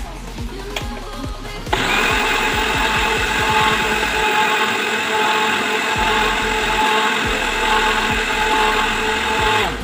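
Electric countertop blender switched on about two seconds in, its motor running at a steady pitch as it blends mango into juice, then switched off just before the end. Background music with a beat plays underneath.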